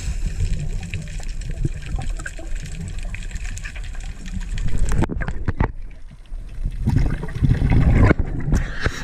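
Underwater sound of scuba divers: bubbling and gurgling from exhaled air, with a diver's garbled voice as he talks underwater with his regulator out of his mouth. It grows louder about five seconds in and again near the end.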